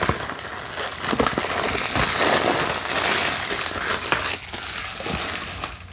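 Clear plastic shrink-wrap crinkling and crackling as it is torn and pulled off a DVD case, easing off near the end.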